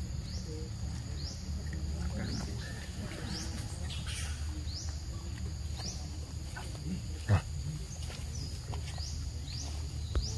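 Outdoor forest sound: a short rising chirp repeats about once a second over a low steady rumble. A single sharp knock about seven seconds in is the loudest moment.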